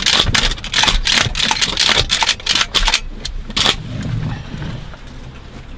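Close rustling and clicking of clothing and gear being handled right next to the microphone. The handling is dense for about the first three and a half seconds, then dies down.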